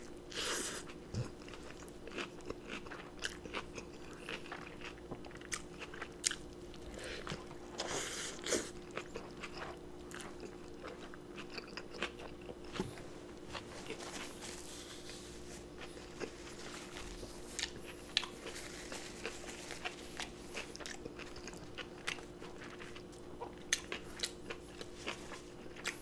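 Close-miked biting and chewing of a loaded burger, with wet smacking and crisp crunches from lettuce, onions and pickles, over a faint steady hum.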